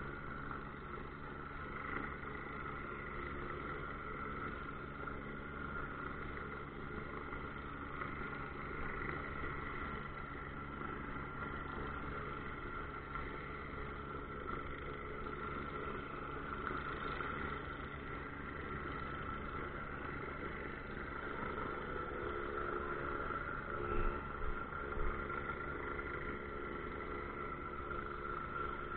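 Steady drone of an idling engine, running evenly with a few constant hum tones. A couple of brief knocks sound near the end.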